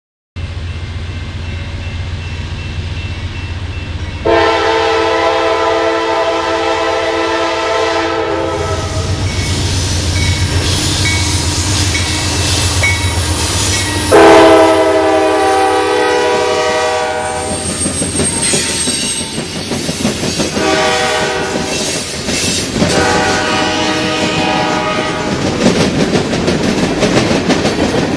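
Norfolk Southern freight train's diesel locomotives passing close by, engines rumbling, while the multi-chime air horn sounds two long blasts, a short one and a final long one: the standard grade-crossing signal. Near the end the freight cars clatter over the rail joints.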